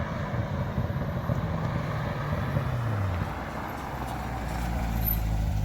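Chevrolet C7 Corvette's V8 engine running on the move: its note drops about three seconds in, then builds louder toward the end as the car accelerates again, with road noise underneath.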